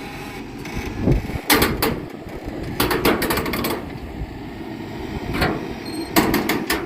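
Backhoe working under load, its low engine rumble broken by clusters of sharp metallic clanks and knocks, with a quick run of them in the middle. This is typical of the hitch and trailer jerking as the machine strains to pull a loaded gooseneck through mud.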